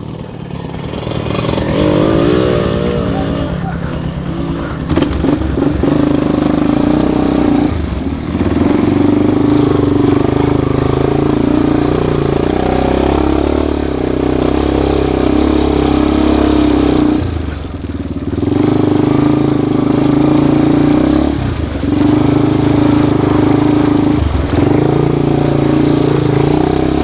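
Off-road dirt bike engine running under load, heard from on the bike, with the throttle eased off briefly about 8, 18, 21 and 24 seconds in before it pulls again.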